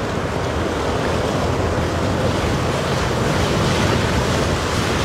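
Steady rush of wind and surf, with wind buffeting the microphone.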